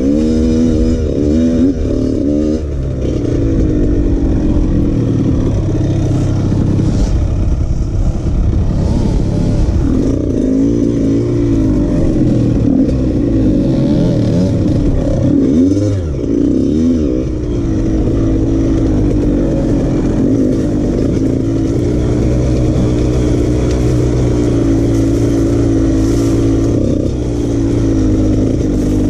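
Two-stroke enduro dirt bike engine (Husqvarna TE) running along a trail, its pitch rising and falling again and again as the throttle is opened and rolled off.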